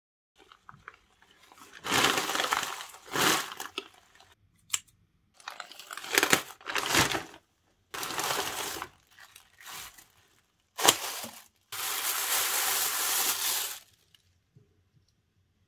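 Plastic postal mailer bag crinkling and rustling as the parcel is handled and torn open, in about six bursts with short quiet gaps; the longest burst comes near the end.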